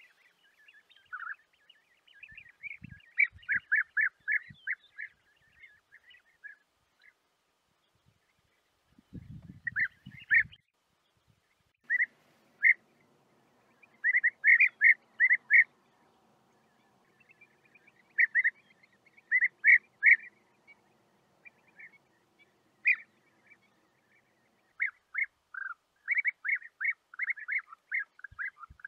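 European bee-eaters calling: clusters of short, quickly repeated calls, several a second, with pauses between the clusters. A few low thumps come about a third of the way in.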